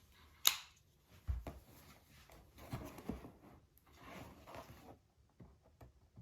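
Packaging of a new screwdriver set being opened by hand: a sharp click about half a second in, a couple of knocks, then rustling and scraping, with a few faint ticks near the end.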